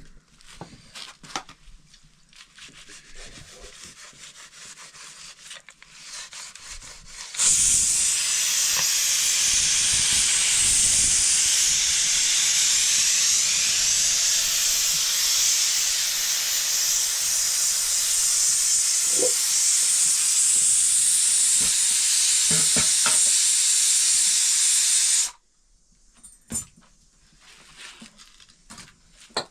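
A loud, steady hiss from the cooking, starting suddenly about seven seconds in and cutting off sharply some eighteen seconds later. Faint clicks and knocks come before and after it.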